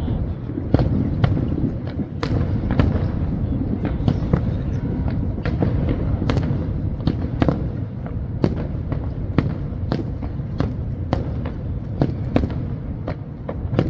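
Fireworks display: a continuous barrage of sharp bangs and crackles, roughly one to three a second, over a steady low rumble of distant bursts.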